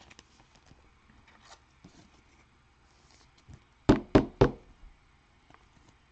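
Three quick, sharp knocks about a quarter second apart near the middle, after a few faint handling clicks.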